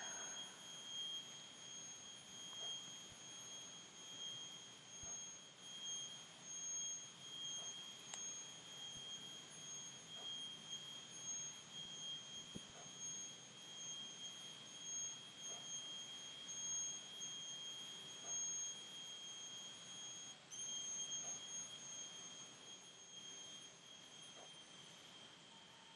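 A steady high-pitched whine with a couple of higher overtones over faint hiss. It drops out for a moment about twenty seconds in, comes back, then fades near the end.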